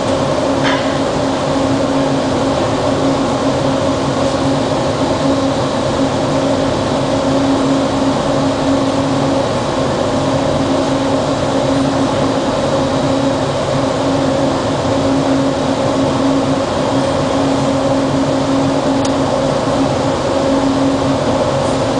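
Steady hum of a stationary Bombardier ART Mk II automated metro train's onboard equipment, a low and a mid tone held steady over a hiss, heard from the cab. A brief click comes just under a second in.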